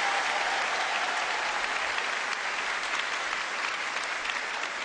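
Audience applauding, a dense steady clapping that slowly dies down.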